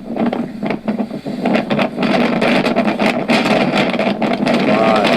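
Hurricane-force blizzard wind blasting against the microphone in loud, uneven gusts.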